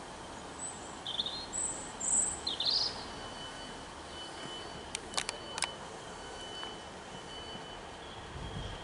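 Small birds chirping, loudest about one to three seconds in, over the steady low running of a Class 150 diesel multiple unit standing at the platform. Two sharp clicks come about five seconds in.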